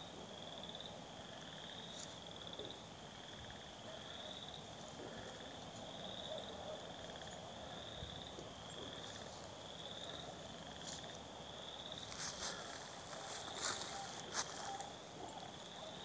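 Frogs calling from the spring roadside, a steady chorus of high trilled calls repeating over and over, about one a second. From about three-quarters of the way in, crackling steps in dry grass.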